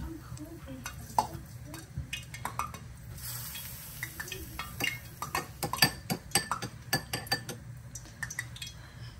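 Metal spoon stirring a thin sauce in a small glass bowl, clinking against the glass, with a quick run of clinks about five to seven and a half seconds in.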